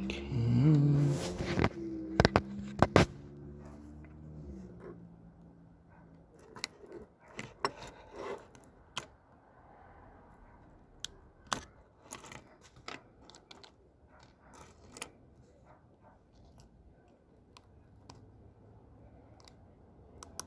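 Small metal tool clicking and scraping against a wristwatch's open case while the button-cell battery is worked out of its holder: a few sharp clicks about two to three seconds in, then scattered faint clicks and scrapes. A brief low humming sound comes at the very start.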